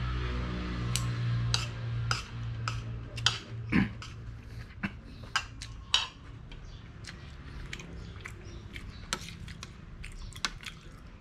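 Someone eating soup with a metal spoon and fork: sharp clicks of cutlery against a ceramic bowl, with chewing. A low steady hum sits under the first four seconds, then fades.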